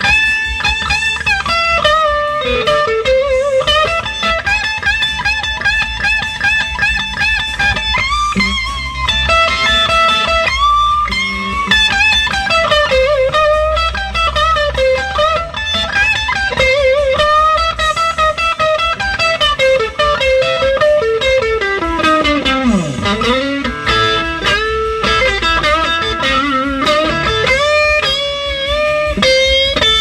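Stratocaster electric guitar played through a 1960 Fender tweed Bassman amp, a bluesy single-note lead with held notes and a deep pitch dip and return about three quarters through. The amp runs on a freshly fitted Mallory 150 filter capacitor in place of a leaky Astron, and the notes sound more clearly defined.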